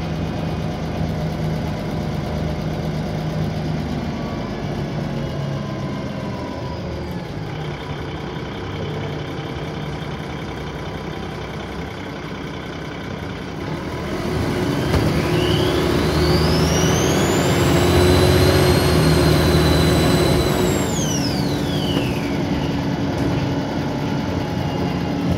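Dennis Trident 2 double-decker bus's diesel engine running at low revs, then about halfway through it pulls harder and a loud turbo whine rises steeply in pitch, holds high for a few seconds and falls away again. The whine is unusually loud for this bus type.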